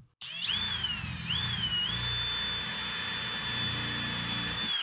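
Brushless cordless drill driving a countersink bit into a softwood block. The motor whine starts about a quarter second in, dips and wavers in pitch for the first couple of seconds, then holds steady until the drill stops sharply at the end.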